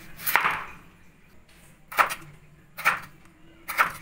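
Kitchen knife chopping potato and carrot on a wooden cutting board: four sharp knocks of the blade against the board, roughly a second apart.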